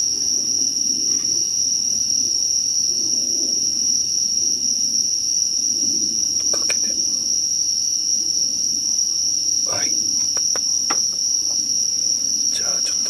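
Night insects trilling in one steady, loud, high-pitched chorus, with a few light clicks and taps about halfway through and again near the end.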